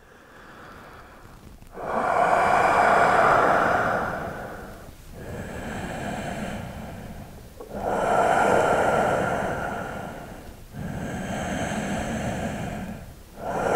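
A man breathing slowly and deeply, close to the microphone: long hissing breaths of two to three seconds each, alternating between louder and softer, about five in all after a quiet first second or two.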